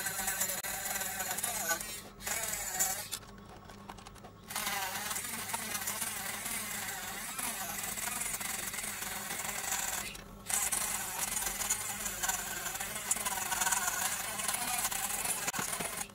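A bare DC motor fitted as a homemade mini grinder, its bit grinding hardened egg-carton-and-glue material on a toy car wheel: a steady motor whine with a gritty rasp, the pitch wavering as the bit bears on the work. It stops briefly about two seconds in, goes quiet for about a second around four seconds, and dips again briefly near ten seconds.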